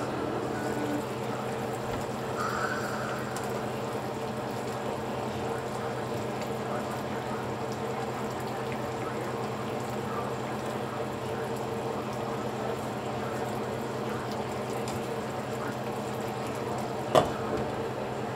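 Fish and vegetables simmering in broth in a skillet, over a steady low hum. Near the end there is a single sharp clink as the glass lid is set back on the pan.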